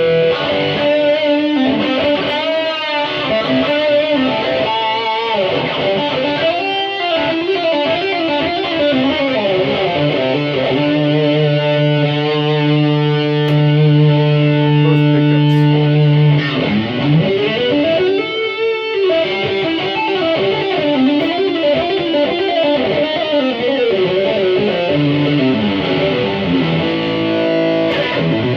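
Electric guitar on its neck pickup, played through a Boss GT-100 multi-effects unit with light distortion: single-note lead lines with pitch bends, and a chord held from about eleven to sixteen seconds in.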